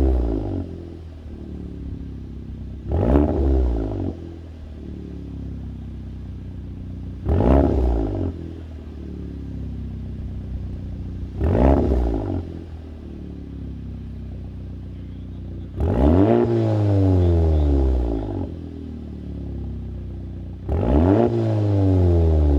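VW MK7 Golf R's turbocharged 2.0-litre four-cylinder through an AWE SwitchPath cat-back exhaust, revved from idle. Three short blips about four seconds apart, then two longer revs of about two seconds each, dropping back to idle between them.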